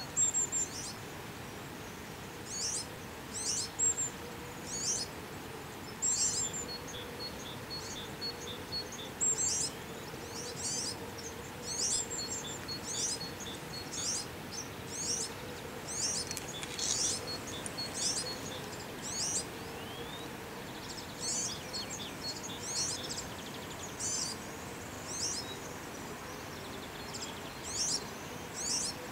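European serin giving short, high-pitched chirps, repeated about once a second, over a steady low background hum.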